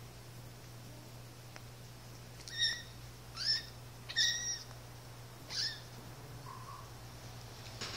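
One-month-old Siamese kitten giving four short, high-pitched squeaking mews while play-fighting with its littermate. A steady low hum runs underneath.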